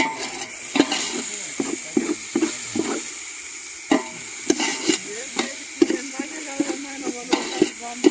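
A spoon stirring and scraping a masala of oil, onions and spices round a metal cooking pot, with repeated knocks and scrapes against the pot, over a sizzle of frying.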